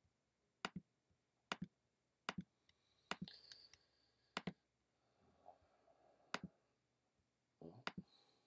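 Computer clicks: about seven sharp clicks, most in quick press-and-release pairs, spaced roughly a second apart, with a faint soft rustle in the second half.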